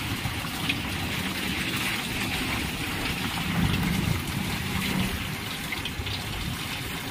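Water from a Cello air cooler's pump streaming down the back cooling pad and splashing into the tank below, a steady trickle and splash: the pump motor is circulating water properly.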